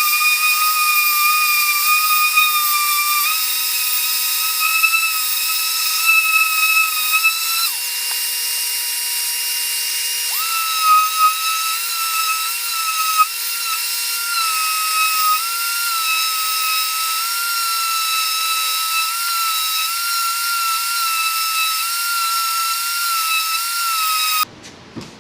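Ridgid 5-inch random orbit sander with a 60-grit disc running on wood, a steady high-pitched whine that wavers slightly in pitch. It shuts off just before the end.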